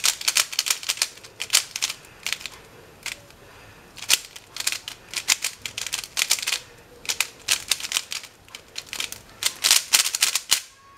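MoYu Mini Aolong stickerless 3x3 speedcube being turned quickly, its plastic layers clacking in runs of rapid clicks with short pauses between.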